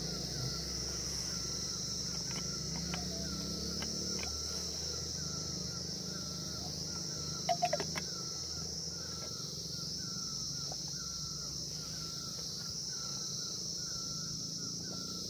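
Rural daytime ambience: a steady high insect drone with a short chirp repeating a little faster than once a second. A few quick clicks sound a little past halfway.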